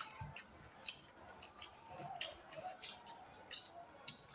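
Faint eating sounds: soft lip smacks and small wet clicks of chewing as people eat rice with their fingers, coming irregularly about once every half second to second.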